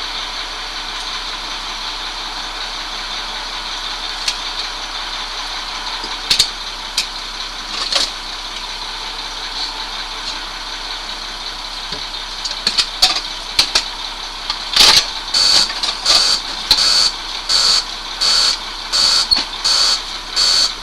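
Vehicle engine running steadily, with a few clicks about a third of the way in; from about two-thirds in, a short high-pitched electronic beep repeats about one and a half times a second over the running noise.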